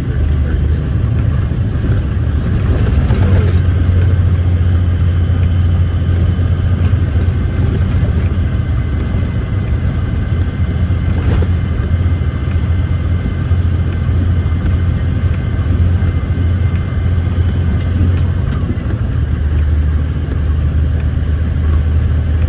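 Logging truck's diesel engine running under way, heard from inside the cab as a steady low drone with road rumble.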